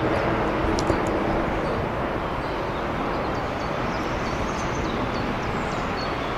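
Steady rumble of distant traffic, with small birds chirping over it and one short click about a second in.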